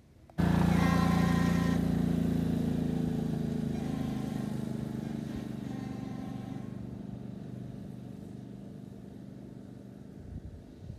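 Fan horn, a replica train horn, mounted on a golf cart and blowing a steady multi-tone chord. It starts suddenly about half a second in and fades slowly as the cart drives off.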